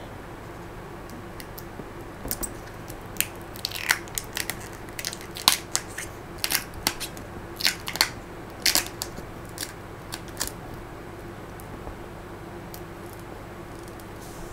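A run of sharp, irregular clicks and crackles lasting about eight seconds, the loudest a few seconds in, over a steady faint hum.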